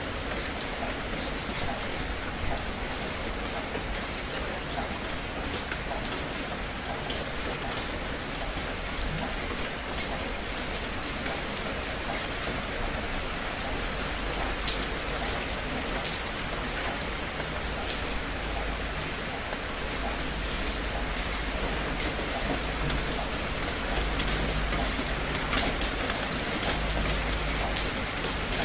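Steady rain falling: a dense, even hiss with scattered sharper drop ticks. A low rumble underneath swells a little in the second half.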